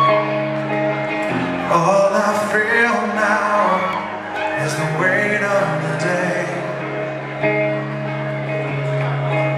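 Live rock band playing through a stage amplifier, electric guitar chords held and changing every couple of seconds. Recorded right in front of the amp, so the sound is distorted on the camera mic.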